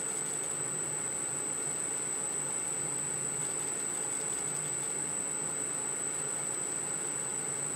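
Metal lathe running steadily while a strip of abrasive tape is held against the spinning crankpin of a model engine crankshaft to polish it: an even running hiss and hum with a constant high-pitched whine over it.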